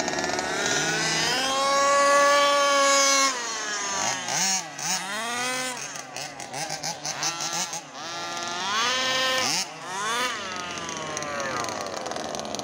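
The 29cc two-stroke petrol engine of a Baja RC buggy revving as the car is driven. It holds a long high-revving run about one to three seconds in, then a string of throttle blips, the pitch sweeping up and down.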